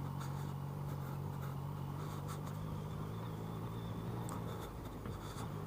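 Motorcycle engine running steadily at low revs, a low even hum that thins briefly about four and a half seconds in.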